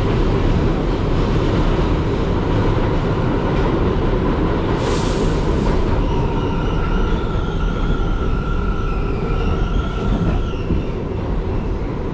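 New York City subway train running with a steady loud rumble. A brief hiss comes about five seconds in, and a faint high whine runs from about six to ten seconds.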